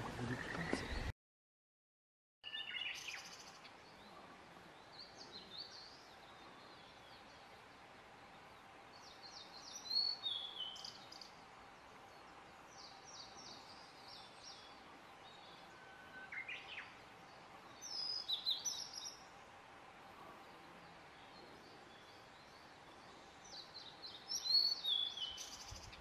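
Male blue-and-white flycatcher singing: short, high whistled phrases repeated every few seconds with quiet pauses between. The first second holds the end of a louder Japanese robin song, cut off by a moment of silence.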